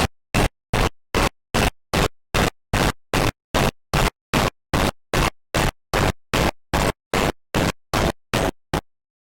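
Electronic static-like noise chopped into short, evenly spaced bursts, about two and a half a second, each cutting off sharply. The pulses stop near the end, leaving dead silence.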